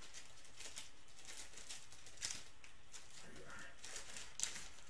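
Trading-card pack wrappers rustling and crinkling as they are picked through by hand, with a couple of sharper ticks, one near the middle and one near the end.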